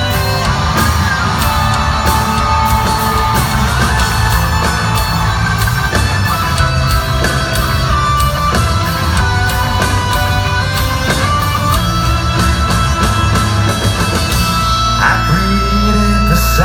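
Live heavy rock band playing an instrumental passage: distorted electric guitars, bass and steady drums, with held, bending lead guitar notes over the top.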